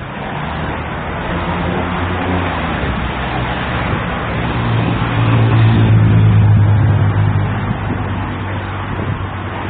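Motor vehicle engine passing close, growing louder to a peak about six seconds in and then easing off, over a steady hiss of traffic.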